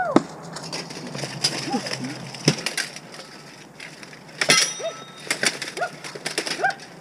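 Armored combat: weapons striking shields and armor in a run of sharp knocks. The loudest blow, about two-thirds of the way in, rings out metallically. The fighters let out short, rising-and-falling cries and grunts between the blows.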